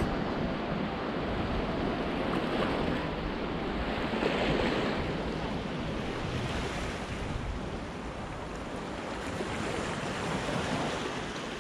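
Sea waves washing against the rocks at the foot of a shoreline cliff, a steady surf with wind on the microphone; the wash swells briefly about four seconds in.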